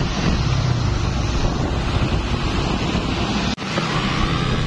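Wind buffeting the microphone over the engine and road noise of a truck driving alongside; about three and a half seconds in the sound cuts abruptly to a steadier truck engine running as the truck drives along the street.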